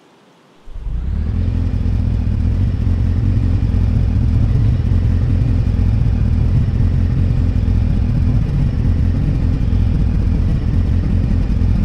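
Motorcycle engine sound that comes in abruptly about a second in and then runs steadily and loudly without rising or falling.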